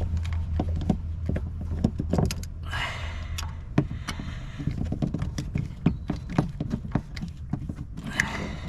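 Hand tools clicking and clinking on metal in irregular short knocks as the oil filter housing bolts are run in and tightened. Two brief rustles and a low steady hum through the first few seconds.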